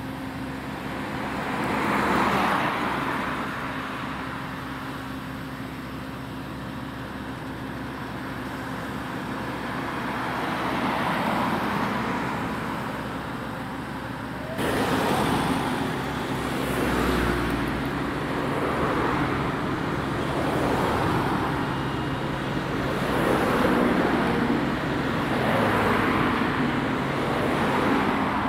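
Road traffic: vehicles passing one after another, each a swelling and fading rush of tyre and engine noise. About halfway through the sound jumps abruptly, and after that the passes come every couple of seconds.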